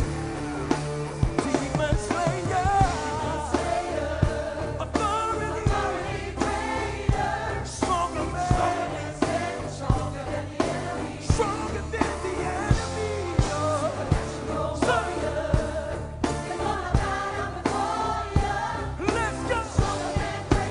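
Gospel song performed live: voices singing over a band, with regular drum hits and a steady bass line underneath.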